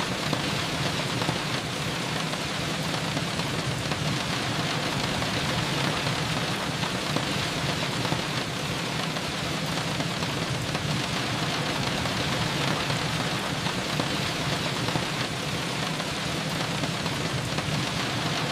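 Steady rain falling, an even patter of drops on surfaces with a low rumble beneath, unchanging throughout.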